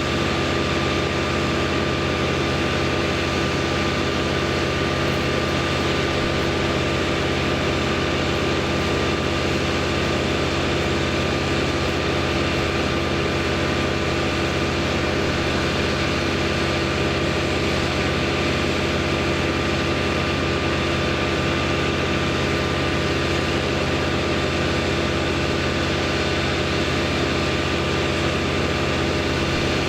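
An engine running steadily at one constant speed, its pitch never changing.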